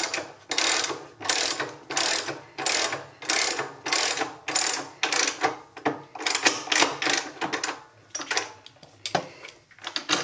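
Hand ratchet wrench clicking through repeated back-strokes, about one and a half strokes a second, as it tightens a motorcycle's swingarm pivot nut down onto a lock washer. The strokes thin out to a few scattered clicks near the end.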